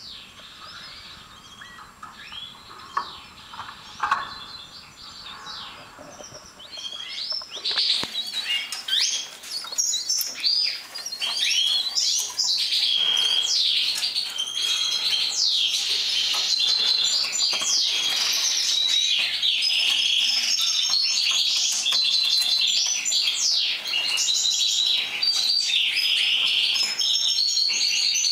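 Caged finches chirping, many short high chirps and quick falling calls. The chirps are sparse and quiet at first, then swell about eight seconds in into a dense, loud, continuous chirping that carries on.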